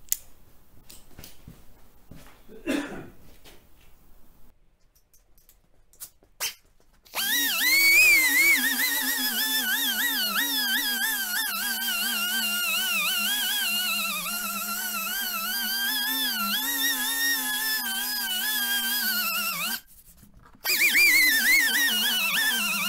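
A power drill driving a sanding pad on a plastic headlight at 1000 grit, its motor whine wavering in pitch as the load changes. It starts abruptly after a few faint handling knocks, cuts out briefly near the end and starts again.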